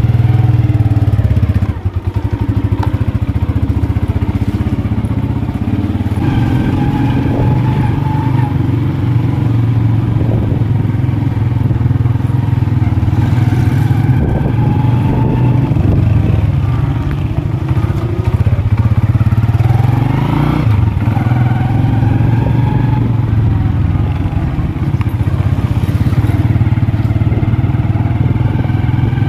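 Small Honda motorcycle engine running while the bike is ridden, a steady drone whose pitch rises and falls several times with the throttle and gear changes.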